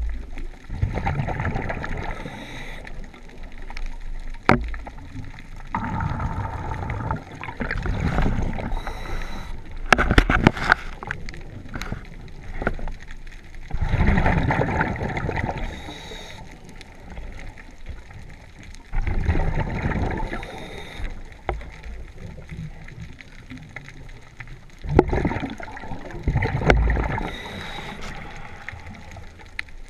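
Scuba diver breathing on a regulator underwater: a noisy rush of exhaled bubbles comes back about every five seconds, with quieter gaps between breaths and a few sharp clicks.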